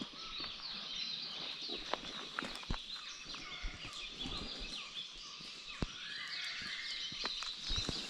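Dawn chorus in rainforest: many birds calling together in quick overlapping chirps and whistles, with scattered sharp clicks and knocks close by.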